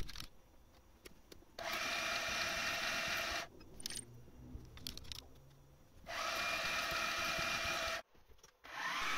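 Mill spindle drilling holes in an aluminium plate with a twist drill: two spells of steady whirring, about two seconds each, with a quiet gap between them. A second drilling sound begins near the end.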